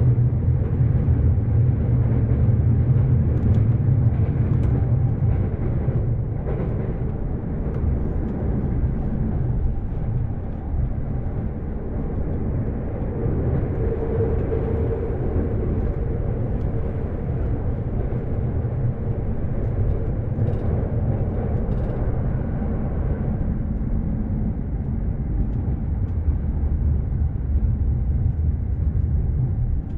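Electric commuter train running, heard from inside the carriage: a steady low rumble of wheels on track, a little louder in the first few seconds.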